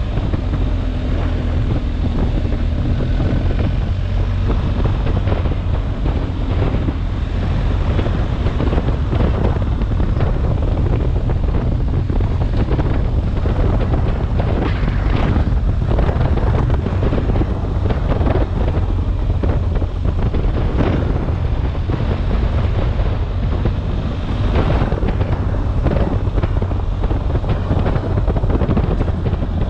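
Low wind rumble buffeting a motorcycle-mounted action camera's microphone as a BMW R 1250 GS rides a gravel track. The bike's engine and tyres on the gravel run beneath it, with occasional short crunches and knocks.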